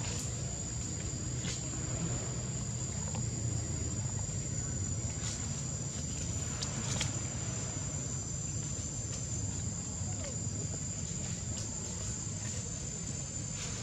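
Steady high-pitched insect drone held at one pitch, over a constant low rumble of outdoor background noise, with a few faint ticks.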